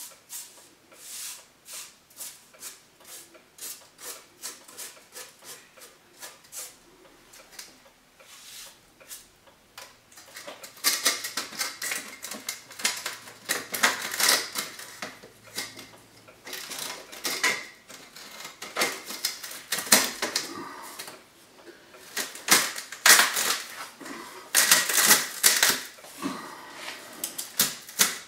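Sheet-metal stove pipe and trim ring being handled and pressed into place: runs of small metallic clicks, taps and scrapes, light at first and louder and denser from about eleven seconds in.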